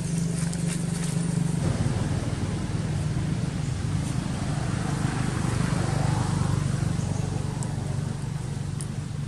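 A motor vehicle's engine running steadily nearby, a low drone that shifts slightly in pitch about a second and a half in. A few faint clicks come near the end.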